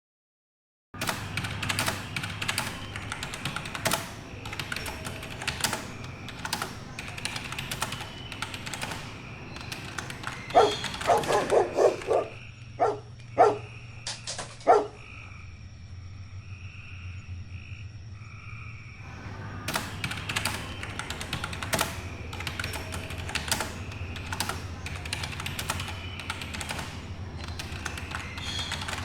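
Rapid, irregular clicking of typing on a keyboard. About ten seconds in, the typing gives way to a brief wavering pitched sound and a few sharp knocks, then a few seconds of quiet with a faint high steady tone, before the typing resumes.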